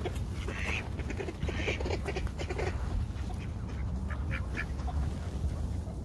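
Mallard ducks quacking in a flock, a busy run of short calls in the first three seconds and a few more around four seconds in, over a steady low rumble.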